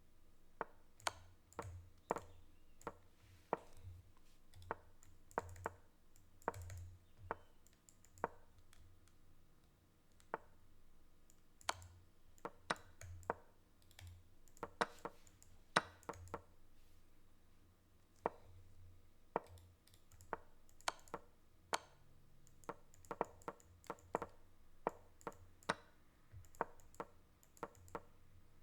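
Rapid, irregular computer mouse clicks with dull desk knocks, a couple of clicks a second, as chess moves are made in a hurry against the clock.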